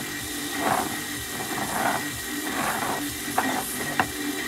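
Small plastic Transformers Shockwave Core Class figure handled and pushed across a tabletop in tank mode: soft scraping and rubbing, then two sharp plastic clicks late on, about half a second apart.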